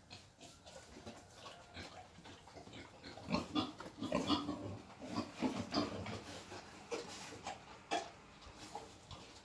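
Wild boar grunting and snuffling in a run of short, irregular sounds, most of them bunched from about three to six seconds in.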